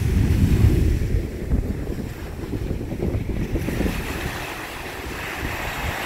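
Sea surf breaking and washing up a sandy beach, with wind buffeting the microphone in uneven low gusts, strongest in the first second or so.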